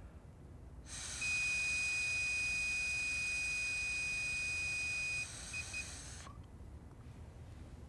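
A man blows steadily into a handheld digital breathalyzer for about five seconds while it sounds one continuous high beep, then two short beeps as the blow ends.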